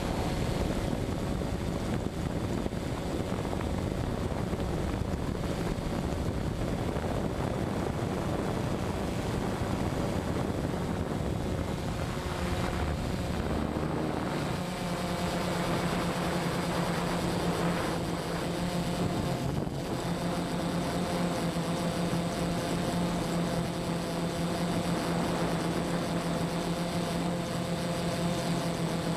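Quadcopter's electric motors and propellers whirring steadily in flight, heard from the camera on the craft. The hum shifts in pitch about halfway through as the motors change speed.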